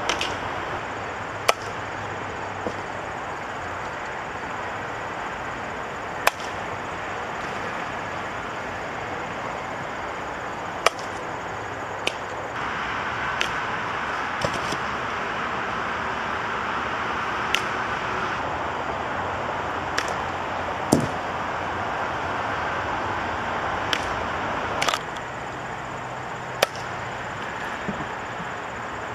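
Fastpitch softball bat hitting softballs off a tee and from soft toss: about a dozen sharp cracks a few seconds apart, over a steady background hiss.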